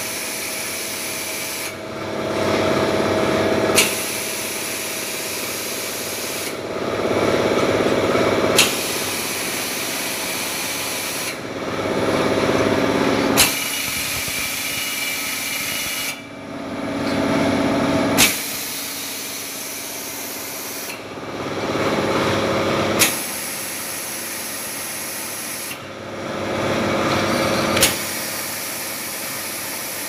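An automatic can-washing machine running through a repeating cycle about every five seconds. Each cycle is a mechanical run that swells for a couple of seconds and ends in a sharp clack, followed by a steadier hiss.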